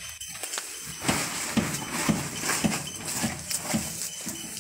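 Metal wheelbarrow clattering as it is wheeled and tipped to dump compost into a planting bed, with a run of hollow knocks about two a second.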